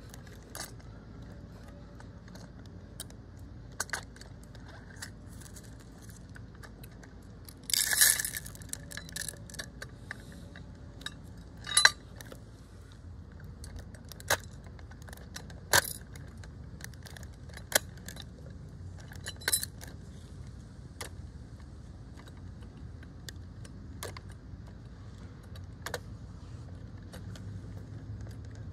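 Scattered light clicks and metallic clinks of a First Gear die-cast front-loader garbage truck model being handled, its lifting arms and parts moved by hand. There is a louder short clatter about eight seconds in and a sharp click near twelve seconds.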